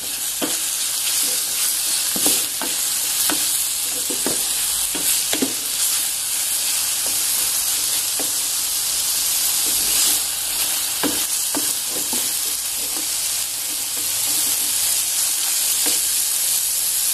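Sliced button mushrooms and onion sizzling in butter in a metal pot, stirred with a wooden spoon that knocks and scrapes against the pot at irregular moments. The mushrooms are being sautéed until they brown and darken.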